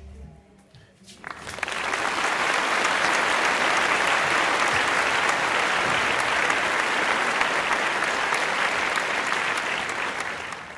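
Applause: many hands clapping densely and steadily, swelling in about a second in and easing near the end.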